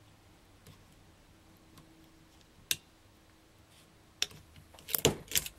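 Crop-A-Dile hole punch clicking as it is worked through a plastic-bottle flower: one sharp click about midway, then a cluster of clicks near the end, the loudest about five seconds in.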